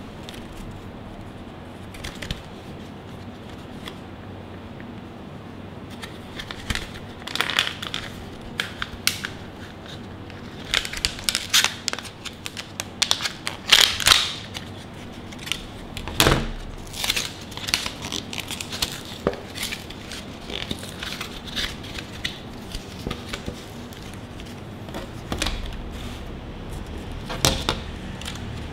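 Hands opening a card-backed plastic blister pack: irregular crinkling and crackling of thin plastic with tearing card, sparse at first, busiest and loudest about halfway through, then more crackles and clicks as the clear plastic tray is handled near the end.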